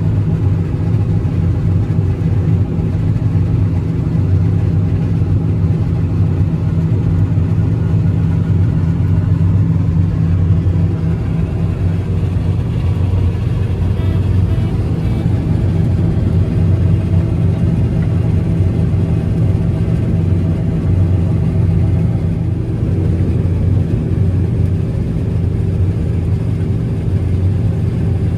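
John Deere 9750 STS combine running steadily under load while harvesting wheat, a constant drone of engine and threshing machinery with a deep steady hum.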